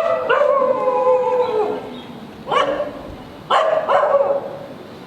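A dog howling once, one long pitched call of nearly two seconds that drops slightly at its end, then two sharp barks about a second apart.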